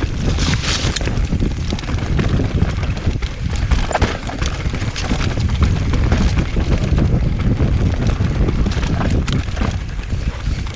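Wind rushing over the microphone with a steady clatter of knocks and rattles as a bike rides fast down a rough, loose, dry dirt trail.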